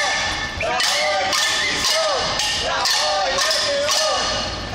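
Protesters banging pots and pans and clapping in a steady beat, about two sharp bangs a second, with voices chanting in rhythm between the strikes: a cacerolada.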